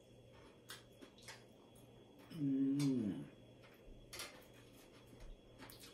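A man's hummed "mmm" of enjoyment while eating, about a second long, wavering then falling in pitch, about two and a half seconds in. Around it, a few light clicks of a spoon and fork against a plate.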